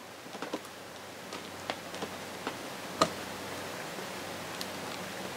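Faint, scattered small clicks and rustling from gloved fingers packing grease between the two prop shaft seals in an outboard's bearing carrier, with one sharper click about three seconds in.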